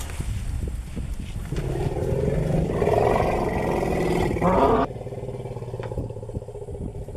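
An African elephant, the matriarch, gives a loud rumbling call as she scolds a mother and calf. The call builds from about a second and a half in and breaks off suddenly near five seconds. Under it runs the steady low idle of a vehicle engine.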